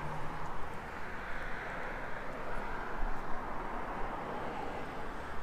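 Steady hiss of road traffic going by, with no distinct knocks or voices.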